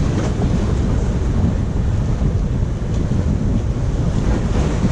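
Steady wind rumble on the microphone over surf washing against the jetty rocks.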